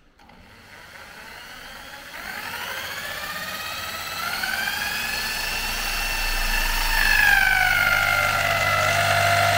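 Corded Makita electric drill spinning a car alternator by its pulley nut for a bench charging test: a motor whine that starts slowly and rises in pitch and loudness over the first few seconds as the drill speeds up, dips briefly about seven seconds in, then climbs again.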